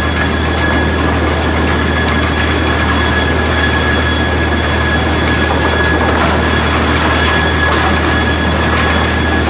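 Newman PM-1600 high-speed planer matcher running with lumber feeding through: a loud, steady mechanical din with a constant high whine over a low hum.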